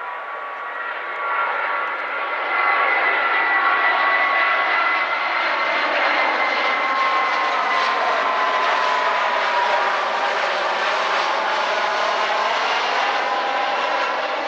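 Airbus A319's twin CFM56 turbofan jet engines passing low overhead on final approach with gear down: a steady rushing roar that swells louder about two seconds in, over a whine of several tones that slowly fall in pitch as the plane goes by.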